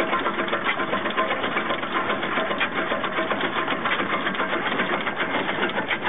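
Vintage stationary engine running steadily with a rapid, even mechanical clatter of valve gear and moving parts.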